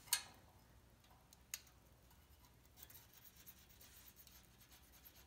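Near silence with a few light metal clicks from a feeler gauge being worked between a valve stem and rocker arm while the valve clearance is checked. One sharp click comes just after the start, a smaller one about a second and a half in, and a few faint ticks follow.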